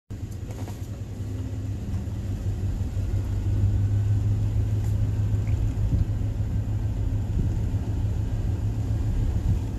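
A steady low rumble that grows louder over the first few seconds.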